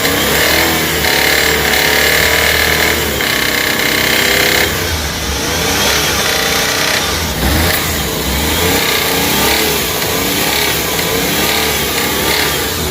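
Suzuki DA64's small engine running and being revved, its pitch rising and falling.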